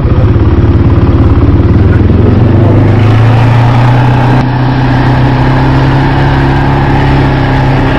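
ATV engine running steadily under way, heard from on board the quad, its pitch rising slightly about two seconds in and then holding.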